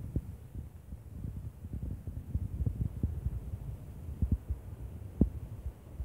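Wind buffeting a phone's microphone on a rocky, wave-washed shore: irregular low rumbling gusts, with one sharper thump about five seconds in.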